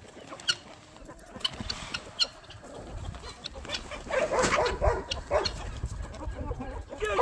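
Flock of chickens clucking, with scattered short sharp calls at first and a busier, louder burst of clucking from about four seconds in.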